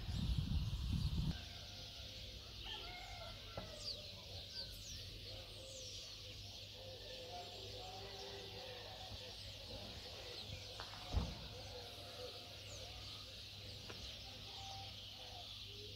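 Distant birds calling over a faint steady high hiss, with short high chirps and longer held calls. A low rumble fills the first second or so, and a single thump comes about eleven seconds in.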